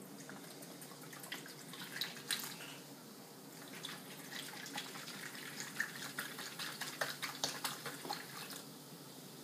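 Sprite lemon-lime soda poured from a 2-liter plastic bottle into a plastic punch bowl: a steady stream splashing into the bowl and fizzing, with many small crackles from the bubbles.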